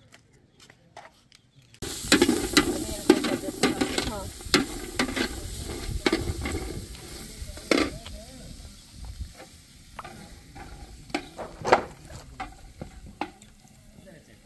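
Food frying in a hot pan: a sizzle that starts suddenly about two seconds in and slowly fades, with clicks and scrapes of stirring.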